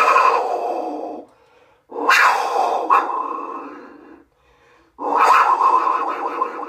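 Large clay jaguar whistle blown in long breaths, giving a rough, breathy rush of sound: one blow ends about a second in, then two more follow, each starting strong and fading out over about two seconds.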